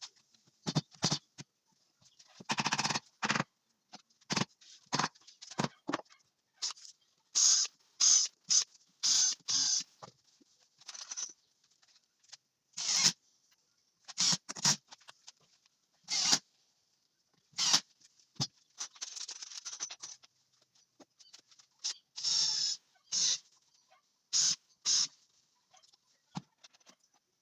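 Irregular short scraping strokes of a hand tool or abrasive on pine wood, each a fraction of a second with brief pauses between them.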